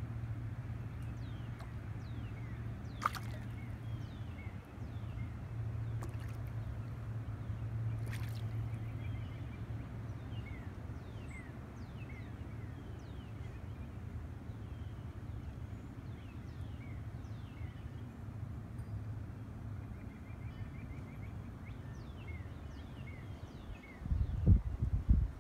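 Quiet lakeside ambience: a steady low hum with many short, high, falling chirps scattered through it. Near the end there is a burst of low rumbling from wind on the microphone.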